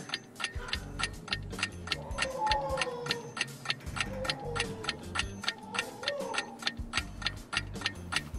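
Countdown sound effect of a clock ticking rapidly and evenly, several ticks a second, over light background music with a melody and a steady bass line, timing a quiz answer.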